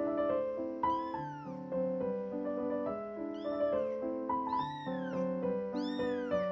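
A very young kitten meowing repeatedly, four or five high calls that rise and fall in pitch, about one a second, over background piano music.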